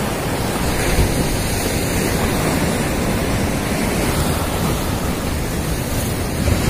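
Sea surf washing against the boulders of a rock seawall, a steady rush of breaking water, with wind on the microphone.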